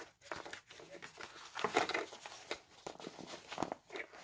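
Rustling and light scraping of a fabric belt pouch being handled by hand, with small clicks as its drawstring cord and toggle are pulled.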